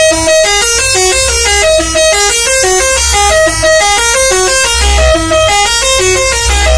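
A tour bus's telolet musical air horn playing a fast tune of short, stepped notes without a break, with a low rumble underneath.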